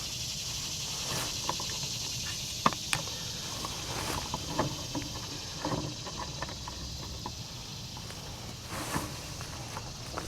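Scattered light clicks and knocks from handling fishing tackle, the sharpest a couple of seconds in, over a steady high hiss.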